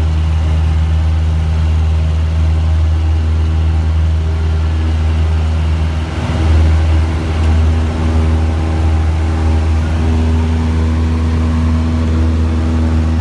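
Small propeller airplane's piston engine running steadily, a loud low drone heard from inside the cabin, with a slight surge about six seconds in.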